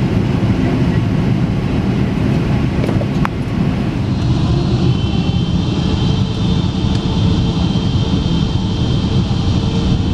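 Boeing 777-300ER rolling on the runway, heard from the cabin: a steady low rumble. From about four seconds in, a thin high engine whine sits over the rumble.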